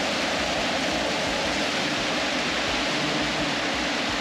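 Fast, muddy river water rushing and churning over rocks right at the microphone: a steady, dense rush. The river is swollen by rainy-season rain.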